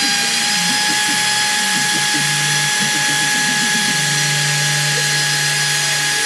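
CNC router spindle running at high speed, a steady whine with a rushing hiss, as its end-mill bit cuts the outline of a part out of a plywood sheet. A lower hum joins briefly about two seconds in and again from about four seconds.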